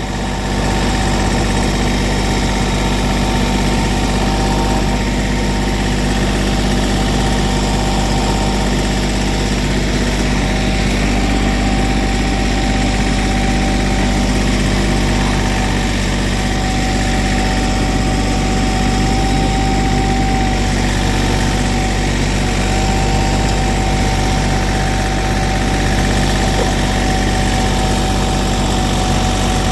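Engine of asphalt paving equipment running steadily at a constant speed, with a thin, steady high whine over its hum.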